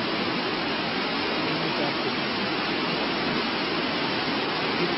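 A steady, even rushing hiss with no engine note, rhythm or voice in it.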